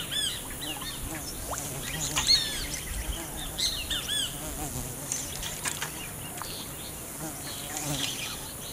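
Insects buzzing over a steady high-pitched insect drone, with birds giving short, repeated arching chirps.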